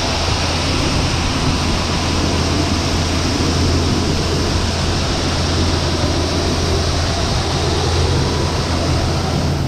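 Vehicle engine running steadily: a constant low hum under an even wash of noise.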